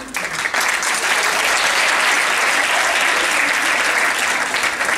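Audience applauding: a full round of clapping that swells in within the first half second and then holds steady.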